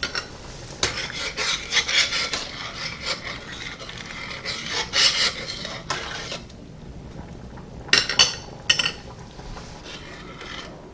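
A spoon stirring macaroni in a stainless steel saucepan of boiling water, scraping and rubbing against the pan for about six seconds, then a few sharp clinks about eight seconds in.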